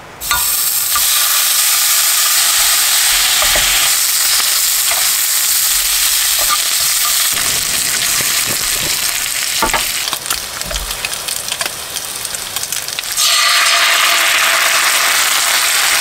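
Pieces of pork sizzling as they fry in a nonstick pan on a portable gas stove, with a few clicks of metal tongs turning them. The sizzle eases for a few seconds after about ten seconds, then comes back louder near the end.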